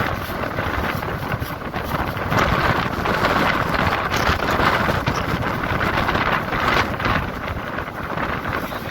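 Sea waves at high tide: a continuous rushing wash of surf with wind buffeting the microphone, swelling louder from about two seconds in until about seven seconds.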